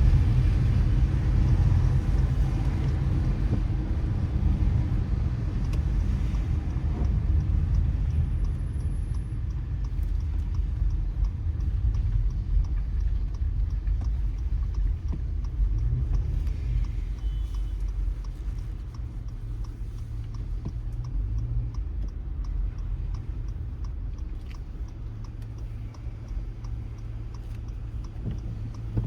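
Car driving on a wet road: a steady low rumble of tyres and engine with a faint hiss, slowly getting quieter.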